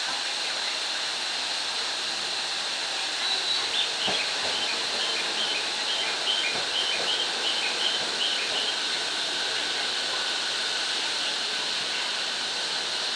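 Heavy rain pouring steadily onto a station platform and tracks. About three seconds in, a quick run of short, evenly spaced high-pitched tones lasts some five seconds, with a single knock just after it starts.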